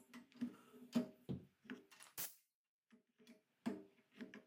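Scattered light wooden knocks and clatter as a timber beam is shifted and clamped on a hollow-chisel mortiser's table, with the machine's motor stopped.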